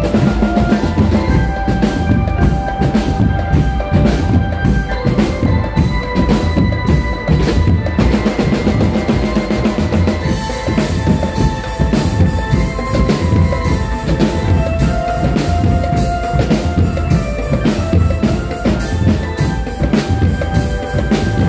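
Children's marching drum band playing: bass drums and snare drums beat a steady, busy rhythm under a melody of held notes. The playing grows brighter and denser about ten seconds in.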